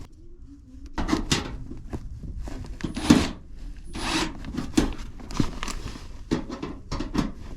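Irregular scraping, rustling and knocking as a collapsed 12-inch duct is handled and worked back into a round shape by hand.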